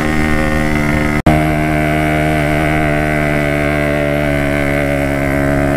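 Yamaha RX-King's 135cc two-stroke single-cylinder engine running at a steady, even speed, with a split-second gap in the sound about a second in. The bike is pushing a broken-down Vespa along.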